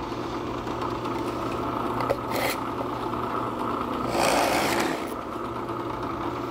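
Floor-standing Grizzly drill press running with a steady motor hum while a twist drill bit is fed through a wooden board. The cutting gets louder and rougher for about a second around four seconds in as the bit breaks through the back of the unbacked board.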